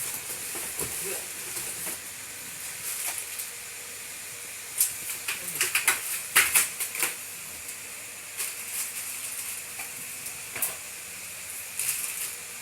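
Packaging being handled while a folding bike is unboxed: rustling and crackling with a steady hiss underneath, and a quick run of sharp crackles about halfway through.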